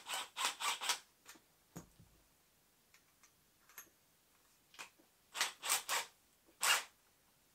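A drill bit being fitted into a cordless drill's chuck: short bursts of clicking and rattling, a quick cluster in the first second, a few scattered clicks, then three bursts near the end and one last loud one.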